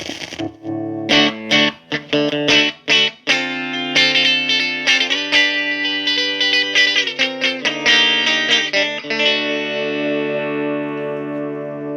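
Electric guitar chords played through a 1994 Marshall Valvestate 8020 20-watt amp: short choppy chords at first, then sustained chords, with a last chord left ringing and fading over the final few seconds. The amp is faulty, its volume coming and going.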